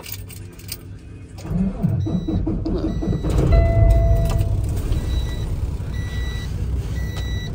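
Semi-truck diesel engine cranking over on a battery run low by an inverter left on, catching after a couple of seconds and settling into a steady idle. A high warning beep from the dash sounds about once a second once it is running.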